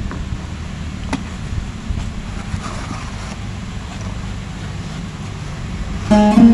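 A steady low rumble with a faint hum, broken by one sharp click about a second in; plucked-string music, sitar-like, comes in loudly near the end.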